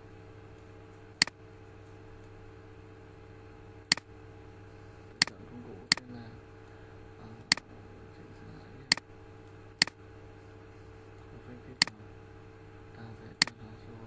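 Computer mouse clicking: nine sharp single clicks at uneven intervals over a steady low electrical hum.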